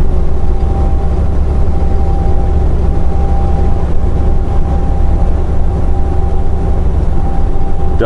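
Semi truck's diesel engine and road noise heard inside the cab while cruising at highway speed: a steady, deep drone with a faint steady whine above it.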